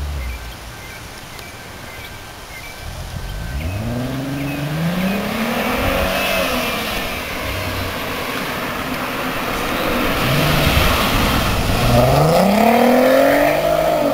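2008 VW R32's 3.2-litre VR6 engine revving through its stock exhaust, the pitch climbing and falling back twice; the second run is the louder.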